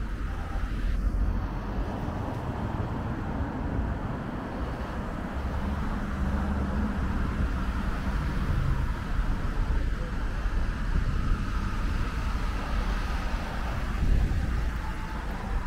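Street traffic noise: cars running on a town street, a steady low rumble with a hiss of road noise above it.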